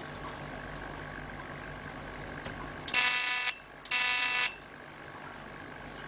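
Two short buzzing beeps of the same steady pitch, each about half a second long with a brief gap between them, over a steady low hum.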